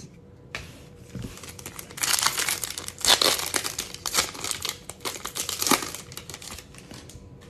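Foil wrapper of a baseball card pack torn open and crinkled by hand: a dense crackle of small clicks, loudest in the middle and dying down near the end.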